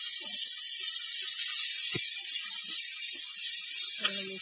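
Grated carrots sizzling loudly in hot ghee in a steel kadhai: a steady frying hiss, with a single knock against the pan about two seconds in.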